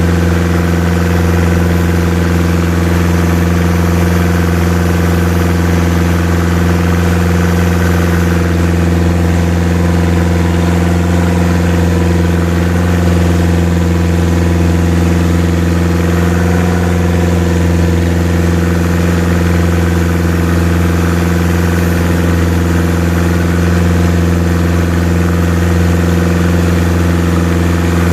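Boat engine running at a steady speed, a low, even drone that does not change.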